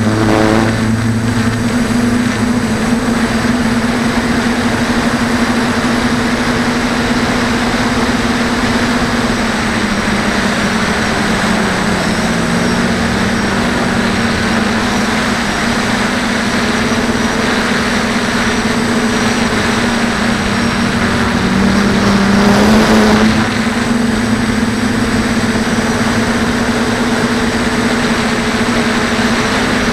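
Motors and propellers of a DJI F450 quadcopter in flight, heard from a camera mounted on its frame: a steady buzzing hum over a wash of air noise. The pitch sags a little about a third of the way through, and there is a short louder surge about two-thirds through.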